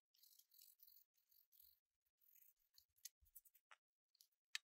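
Faint scratching of a small bristle brush scrubbing the solder side of a cassette deck's circuit board in short strokes, followed by a few light clicks and taps as the boards are handled.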